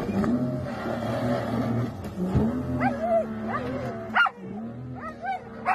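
A dog yips and barks several times in short, sharply pitched calls, the loudest about four seconds in. Under it runs the steady hum of a boat engine.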